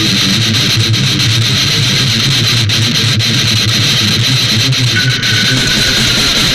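Extreme metal music with electric guitars, loud and dense throughout. A high held note enters about five seconds in and slides slightly down.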